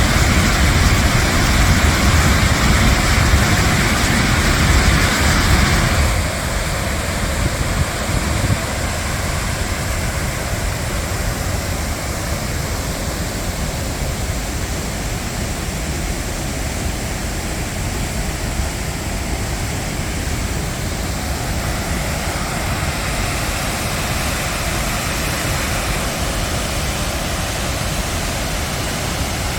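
Waterfall rushing steadily, an even wash of falling water. The sound drops a little about six seconds in and then holds level.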